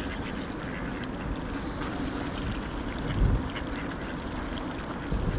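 Mallard ducks quacking now and then over a steady background hiss, with a low thump about three seconds in.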